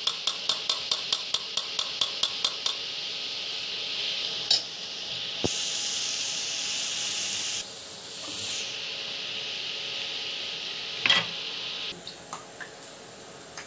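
A steel spoon taps and scrapes against a perforated boondi ladle about three times a second for the first couple of seconds, pushing gram-flour batter through into hot oil. Under it, drops of batter sizzle steadily as they fry, louder and brighter for about two seconds in the middle. One sharp metal knock comes near the end.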